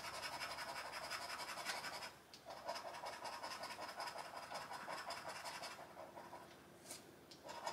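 Scratch-off coating being scraped off a £1 Doubler scratch card in quick, rasping strokes, with a brief pause about two seconds in and fainter scratching near the end.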